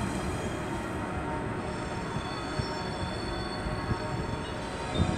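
Thalys high-speed train departing and rolling away along the track: a steady rumble of wheels on rails, with thin high squealing tones from the wheels running through it.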